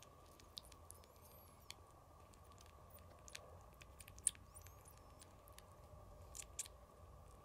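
Very young kitten sucking on a person's finger: faint, irregular wet clicks and smacks, the loudest about four seconds in.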